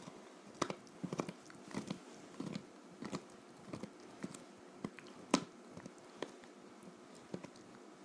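Bassador puppy chewing a rawhide bone: irregular gnawing clicks, about two a second, the loudest a little past the middle, thinning out near the end.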